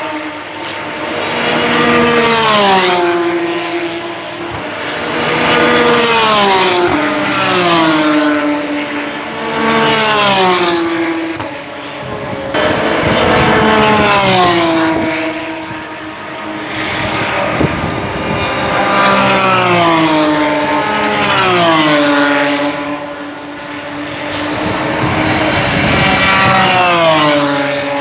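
GP3 single-seater race cars passing one after another at speed, about eight or nine drive-bys, each engine note swelling and dropping in pitch as the car goes by.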